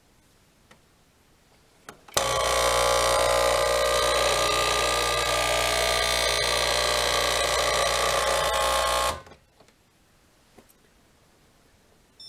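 Saeco Incanto S-Class Sirius super-automatic espresso machine running with a steady hum for about seven seconds after a button press, starting and stopping abruptly.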